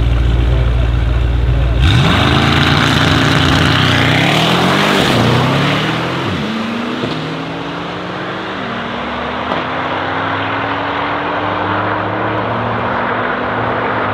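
A Brabus 800 E63 S's 4.0-litre twin-turbo V8 and a Stage 2+ Porsche 991 Turbo S run with a steady low rumble at the start line, then launch hard about two seconds in. Both engines accelerate away, their pitch climbing and dropping back at several upshifts, and the sound grows quieter as the cars pull away down the strip.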